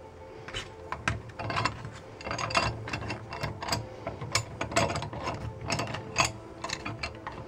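A clamp presses the jammed lens barrel of a Canon PowerShot point-and-shoot back into the camera body. It makes a run of irregular sharp clicks and creaks that begins about a second in. The lens would no longer retract on its own.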